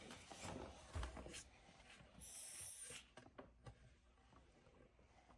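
Near silence: room tone with a few faint knocks and a brief faint high hiss about two seconds in.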